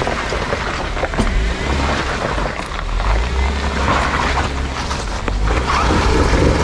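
Jeep Wrangler Unlimited crawling slowly over loose rock, engine running steadily at low speed, with the tyres knocking and crackling over stones and gravel.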